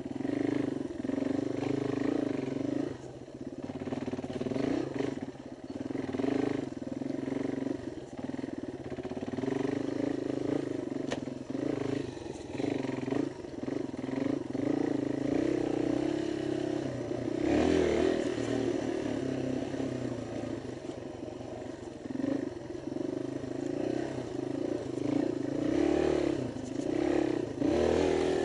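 Yamaha XT225 dirt bike's single-cylinder four-stroke engine pulling up a rough hillside trail, the throttle opening and closing so the engine note surges and eases every few seconds.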